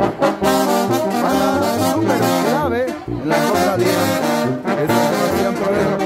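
Oaxacan brass band (banda de viento) playing, trombones and trumpets carrying the tune over a drum-kit beat of bass drum and cymbals.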